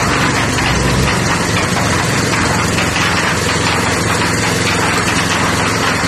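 7 hp gasoline engine of a concrete mixer running steadily.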